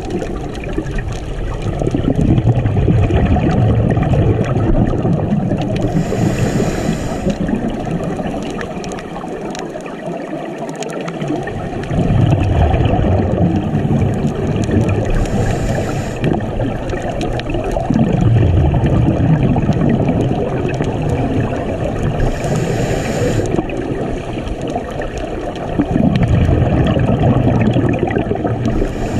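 Scuba diver breathing through a regulator, heard underwater: a short hiss on each inhale roughly every eight seconds, and between them the rumbling, gurgling rush of exhaled bubbles.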